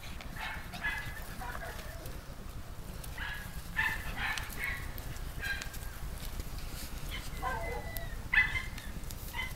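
Puppies yipping faintly, scattered short high-pitched cries with pauses between.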